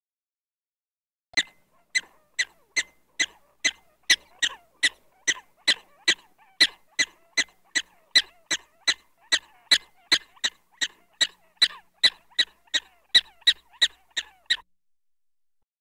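Black-tailed prairie dog giving a rapid, even series of short, sharp alarm barks, about two and a half a second, starting about a second in and stopping near the end.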